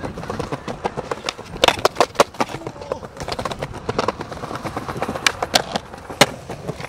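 Skateboards rolling on pavement with an irregular run of sharp clacks and knocks as boards hit the ground, the loudest about two seconds in and again near the end.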